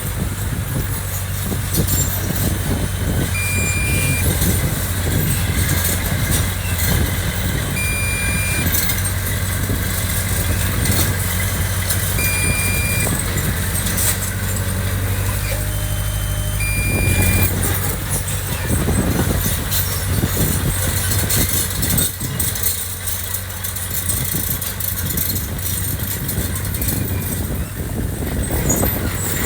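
Diesel engine of heavy earthmoving equipment running steadily, with a short high beep repeating about every four and a half seconds. The engine note changes and turns rougher a little past halfway.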